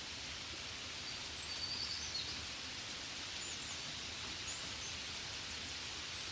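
Steady, gentle rain hiss, like rain on a window. A few short high chirps sound over it, most of them about one to two seconds in.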